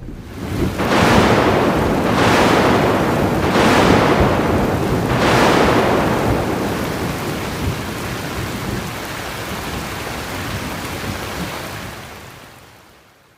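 Sound effect of rain and rolling thunder: a rushing noise that swells four times in the first six seconds, then a steady rush that fades away near the end.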